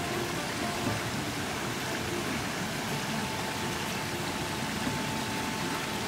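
Water running steadily over rocks in a shallow stream, an even rushing noise.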